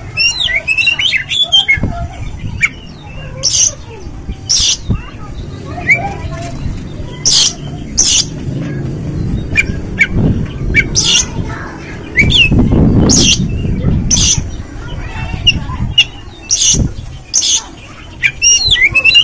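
Oriental magpie-robin calling: short, loud, harsh notes every second or two between quick whistled phrases. A low rumble swells around the middle.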